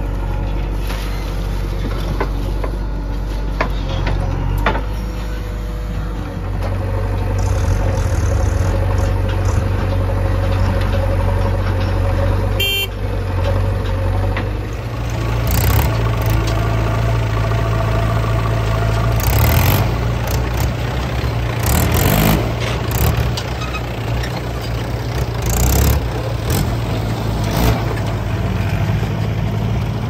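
Diesel engines of a JCB 3DX backhoe loader and a Mahindra 475 DI tractor running with a steady low hum, with several short louder bursts in the second half as the machines work.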